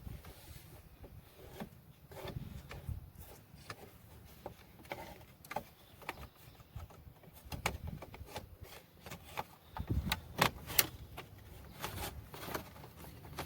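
Scattered clicks and light knocks of hands handling parts and screws during repair work on a pickup truck, growing busier and louder in the last few seconds.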